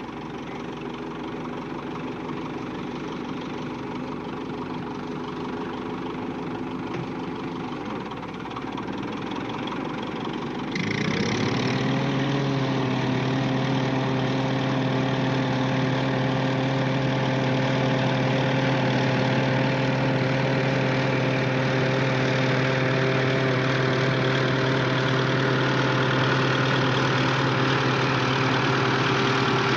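Tank engine running steadily. About eleven seconds in it gets abruptly louder and settles into a heavier, even engine note that holds steady.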